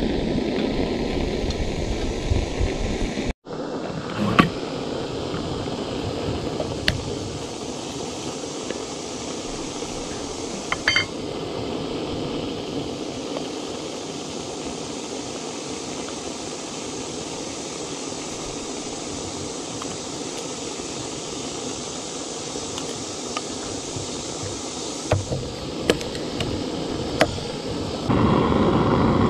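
Steady hiss of a small gas canister stove burning, with a few light clicks of metal cookware being handled. Near the end the hiss grows louder as water in a steel canteen cup comes to a rolling boil over the flame.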